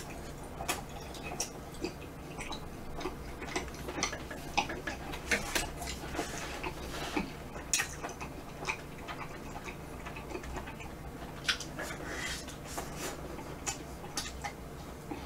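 Close-miked mouth sounds of a person eating soft, half-melted vanilla ice cream off a wooden spoon: irregular wet smacks and clicks, over a faint steady low hum.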